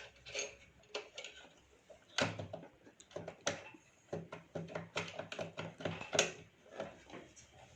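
Irregular light clicks and knocks of metal sewing-machine parts as the presser foot is taken off and a different foot is fitted.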